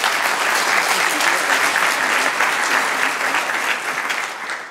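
Audience applauding, a dense clapping that starts tapering off near the end.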